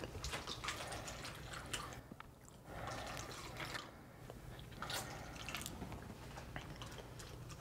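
Faint trickling and dripping of Juicy Juice apple juice being poured from a bottle into small cups, with a few small clicks from handling the bottle and cups.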